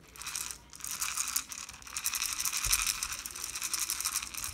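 Dry dog kibble rattling in a bowl as it is shaken, a dense run of rapid small clicks.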